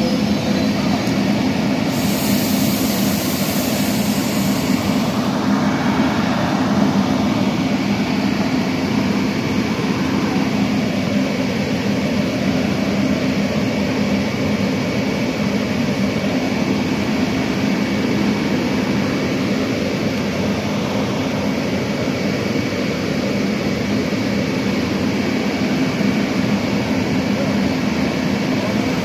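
Amtrak Crescent passenger train running past close by: a loud, steady rumble of the train rolling on the rails, with a thin high whine throughout and a brief hiss from about two to five seconds in.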